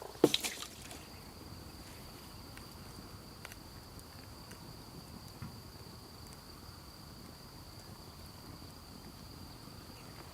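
Two sharp knocks right at the start, then an insect trilling on one steady high note from about a second in, over a quiet outdoor background with a few faint ticks.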